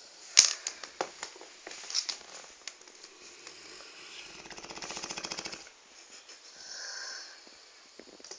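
Sleeping Dogue de Bordeaux snoring: one long rattling snore that builds over about two seconds, then a softer whistling breath. A few sharp clicks near the start.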